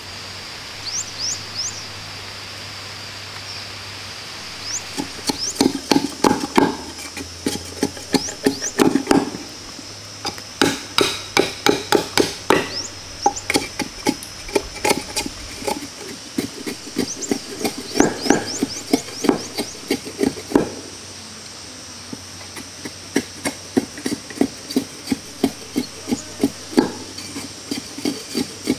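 Knife blade chopping and splitting bamboo: sharp wooden knocks in quick runs, with short pauses between runs, starting a few seconds in.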